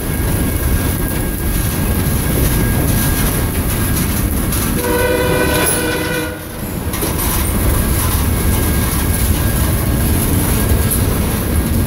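Freight train cars rolling past with a steady rumble and wheel clatter. About five seconds in, a locomotive horn sounds once for about a second and a half.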